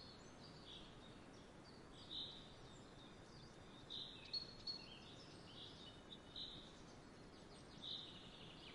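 Faint, short, high bird chirps at irregular gaps of about a second, over a low background hiss.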